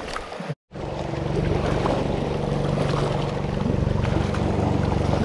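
A boat's engine running steadily with a low, even hum, starting abruptly under a second in, over water lapping at the rocks.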